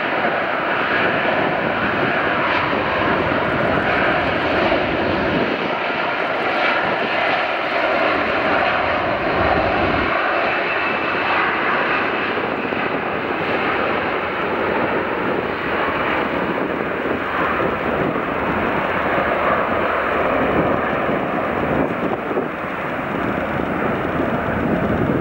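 Airbus A330-243's two Rolls-Royce Trent 700 turbofan engines at takeoff thrust during the takeoff roll: a loud, steady jet rush that holds its level throughout.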